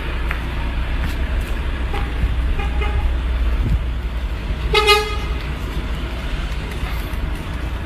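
A vehicle horn toots, a faint short toot about two and a half seconds in and a louder one about five seconds in, over the steady low rumble of an idling engine.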